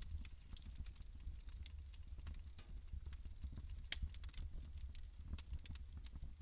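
Wood logs burning in a fireplace, crackling with irregular sharp pops over a steady low rumble of the fire.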